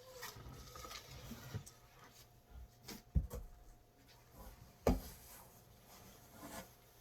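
Clothing being handled: soft rustling and shuffling of fabric, with two dull knocks about three and five seconds in.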